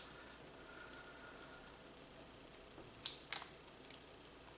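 A few faint clicks and small knocks as plastic plug parts are handled and pressed together, with two sharper clicks a little after three seconds in.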